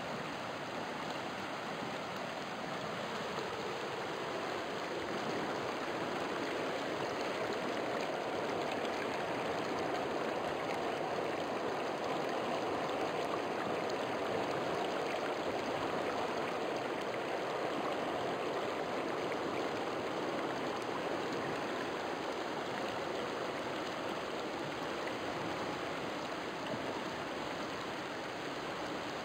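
A river running: a steady rush of flowing water that swells slightly through the middle.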